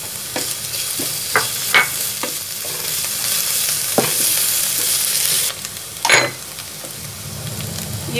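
Grated onion, garlic and ginger sizzling in oil in a non-stick frying pan, while a stirring utensil scrapes and taps against the pan about five times. The sizzle drops off suddenly about five and a half seconds in.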